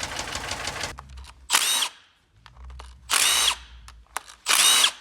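A Mitsubishi Lancer X engine clattering with a fast, even rattle at cold start, the typical knock of a worn cam phaser whose locking pin no longer holds it; it stops about a second in. Then a power drill whirs three times in short bursts, each spinning up and back down.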